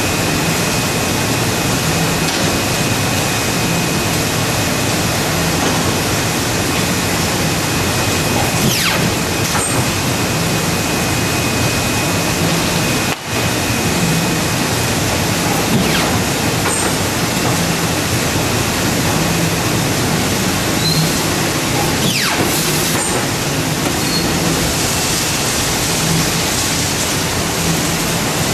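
Steady machine noise of a Wohlenberg 137 paper cutting line running: a constant rushing hiss with a low hum that comes and goes, and a brief dropout about halfway through.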